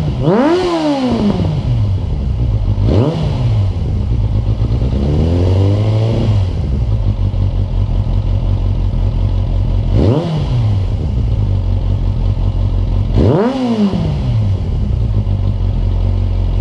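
1996 Suzuki GSF600 Bandit's inline-four engine idling through an aftermarket IXIL slip-on exhaust, revved in quick throttle blips five times. The blip about five seconds in rises more slowly and is held for about a second before dropping back to idle.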